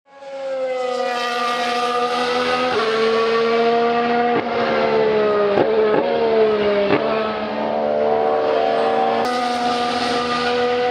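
Formula 1 Sauber C34's Ferrari 059/4 1.6-litre turbocharged V6 running on track. The engine note fades in quickly, then drops in pitch in steps several times, each step with a short crack. About nine seconds in it steps up and gets brighter as the throttle opens.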